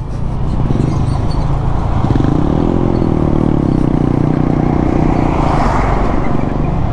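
Motorcycle engine running steadily on the road with wind rushing over the helmet-mounted microphone; the engine note rises a little about two seconds in and then holds, and the noise swells near the end as a truck passes close alongside.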